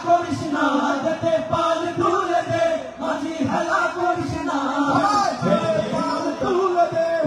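A group of men singing an Islamic devotional song (gojol) together through microphones, over a steady held note.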